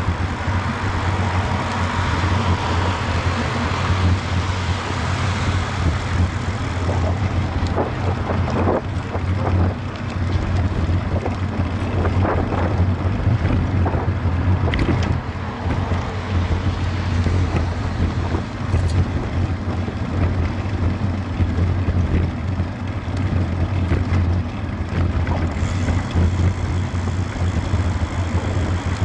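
Wind buffeting the microphone of a bicycle-mounted action camera over a steady low rumble from riding on paving stones, with a few sharp knocks from bumps in the first half.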